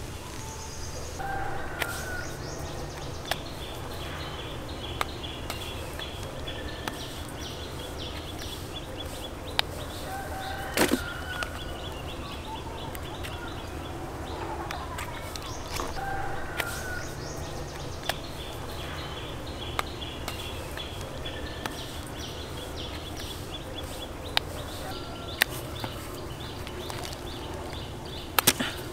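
Outdoor ambience of birds calling, with short calls repeating every few seconds over a steady low background, broken by occasional sharp clicks or snaps, the loudest about eleven seconds in and near the end.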